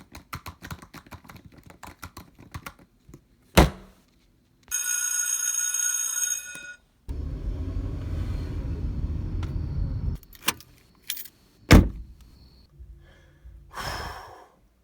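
A string of separate sound effects: rapid clicking for about three seconds, a sharp knock, a ringing tone lasting about two seconds, a low rumble lasting about three seconds, then a few knocks, a loud thump and a short rustle near the end.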